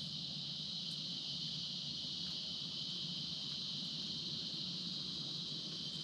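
Insects droning in a steady, continuous high-pitched chorus that sets in just as the sound begins and holds unbroken, over a faint low hum.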